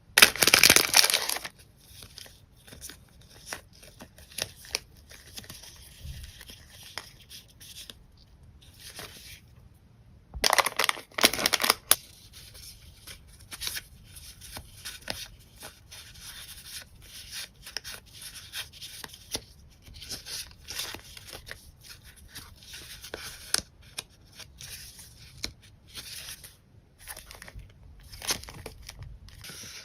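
Packaging being torn open: a loud tearing burst right at the start and another about ten seconds in, with quieter rustling, crinkling and handling of paper packs and sticker sheets between and after them.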